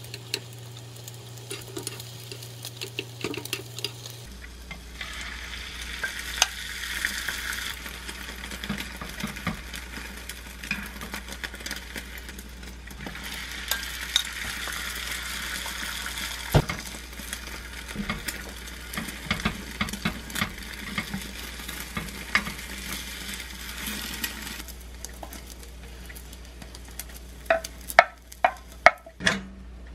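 Beaten egg frying in a square nonstick rolled-omelette pan, the sizzle louder in two stretches, the longer one about halfway through as more beaten egg is poured in. Chopsticks and a wooden spatula scrape and tap on the pan as the omelette is rolled. Near the end come a few sharp knocks.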